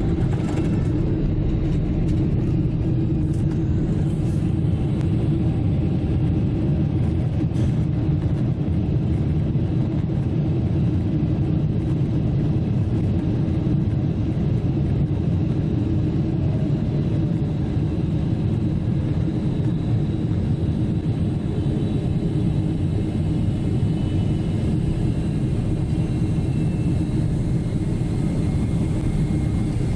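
Steady low rumble of a Boeing 777-300ER heard from inside the cabin: the GE90 engines and airflow running evenly, with no change in level.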